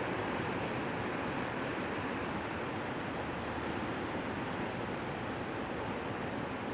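Steady rushing of floodwater, a creek swollen by heavy rain running high and fast.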